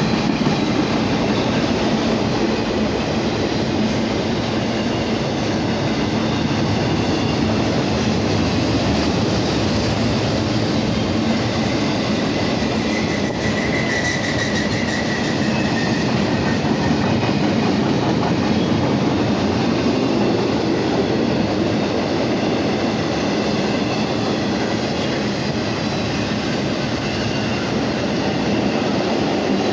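CSX intermodal freight train rolling past, a steady loud noise of steel wheels on rail and railcars going by, with a faint brief wheel squeal about halfway through.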